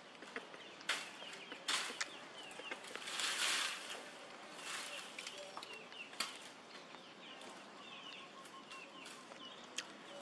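Sharp clicks of a small nail clipper trimming a baby macaque's nails, coming every second or two. A louder rustle about three seconds in and faint high chirps run underneath.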